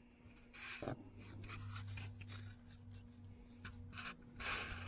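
Faint scratchy rustling and small clicks from hands handling a freshly polished screwdriver, over a steady low hum, with two louder soft hisses, one about a second in and one near the end.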